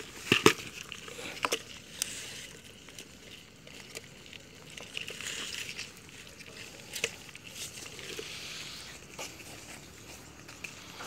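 Water sloshing and swishing with a few sharp knocks and clicks, two of them close together near the start, as someone moves through shallow water at the edge of a river or pond.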